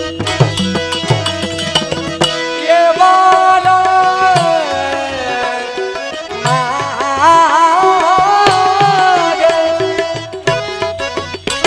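Devotional folk music with tabla and a melody line. The tabla plays near the start and the end and falls mostly quiet in the middle, while the melody swells, bending and wavering in pitch over a steady held drone.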